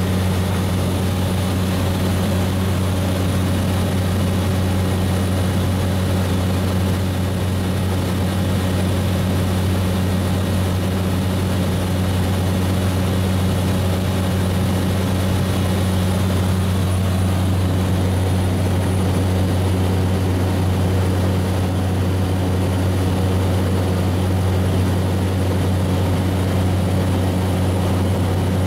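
Steady drone of a turboprop aircraft's engines and propellers in cruise, heard inside the cockpit: a constant deep hum with a faint steady high whine above it.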